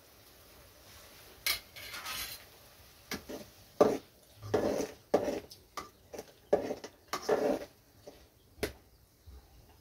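Perforated metal spatula stirring and scraping around a metal kadai of hot water with onions and spices, clanking against the pan in a run of irregular strokes that start about a second and a half in and end with a sharp knock near the end.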